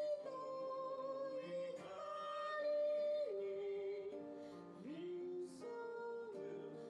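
A man singing a slow folk song in long held notes that step from pitch to pitch, to acoustic guitar accompaniment.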